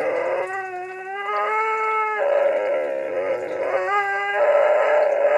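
Siberian husky "talking": a long unbroken run of drawn-out, howl-like vocalizing whose pitch slides up and down, with clearer, higher stretches from about half a second to two seconds in and again around four seconds.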